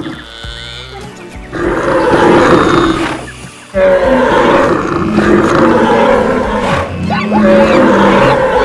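Stampede sound effects: animal roars and calls layered over a dense din, with music. It is quieter for the first second and a half, drops briefly just before four seconds in, then comes back louder.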